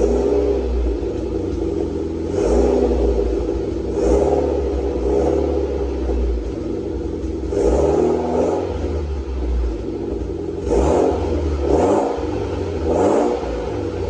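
Mitsubishi Lancer Evolution X's turbocharged 2.0-litre four-cylinder running through a titanium cat-back exhaust and catless test pipe, idling with about nine quick throttle blips that rise and fall in pitch. It has a growl, and an exhaust leak at an open oxygen-sensor bung can faintly be heard.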